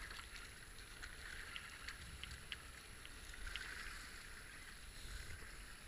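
Steady rush of foaming river rapids around a kayak's hull, with small splashes and drips from paddle strokes.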